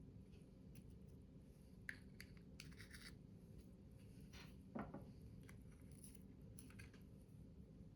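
Faint, scattered scratchy snips and rustles of paper being cut and handled, with a soft knock about five seconds in.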